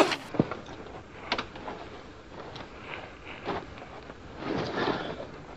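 Scuffle sounds: a few soft, separate knocks and scuffs about a second apart, with a faint rustle near the end.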